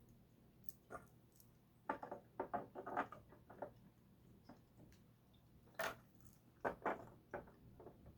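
Plastic LEGO chess pieces clicking and tapping as they are set down and pressed onto a LEGO chessboard, in two quick runs of sharp clicks.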